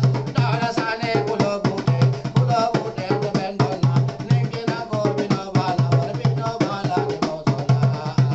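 Hand drum played with bare hands in a fast, steady rhythm, with a voice singing along over it.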